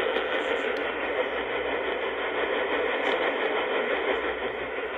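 Steady, dull hiss of radio static from a receiver with no programme audio, a dead-air gap in the broadcast warning.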